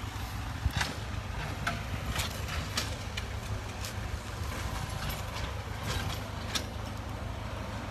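Tractor fitted with a front blade, its engine running with a steady low rumble as it grades dirt, with scattered short, sharp clicks.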